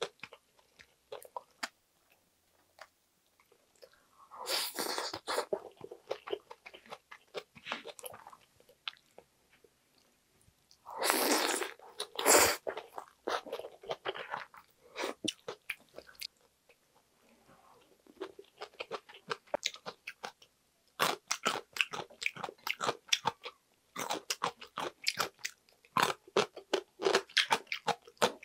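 Close-miked eating sounds: chewing and crunching of food, with many small wet mouth clicks. Two longer, louder sounds, each about a second long, come about five seconds in and again about eleven seconds in.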